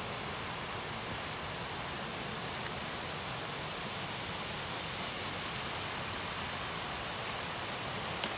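Steady, even rushing of rain-fed waterfalls pouring off the cliffs, with one sharp click near the end.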